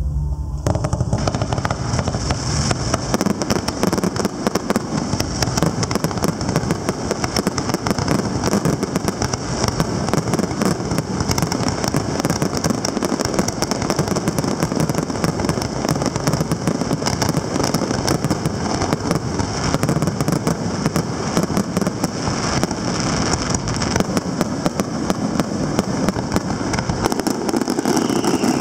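Fireworks finale: a nonstop barrage of shells launching and bursting, with dense crackling, starting abruptly about half a second in.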